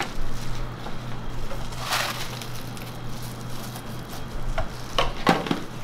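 Dry cornflakes poured from a plastic tub and scattered by hand onto a crepe: a rustling pour about two seconds in, then a few light clicks and taps near the end, over a steady low hum.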